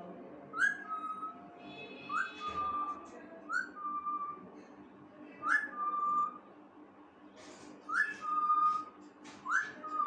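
Pet parakeet whistling an imitation of a Redmi mobile phone tone: a quick rising note followed by a held, steady, lower note, repeated about six times.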